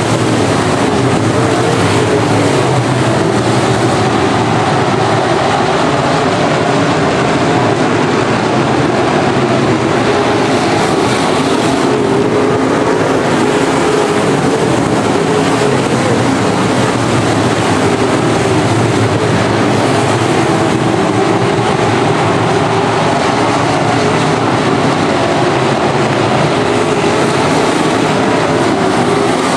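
A pack of IMCA Modified dirt-track race cars with V8 engines running hard together at racing speed, a loud, steady engine drone.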